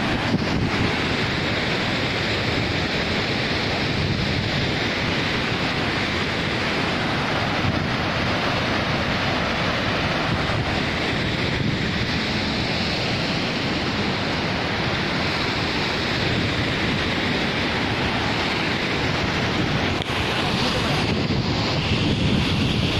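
Steady rushing of a waterfall and rocky river rapids in heavy flow, with wind buffeting the microphone.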